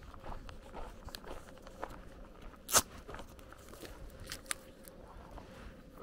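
Footsteps crunching on a dirt and gravel lane, in an irregular patter of small clicks. A single sharp snap about three seconds in is the loudest sound.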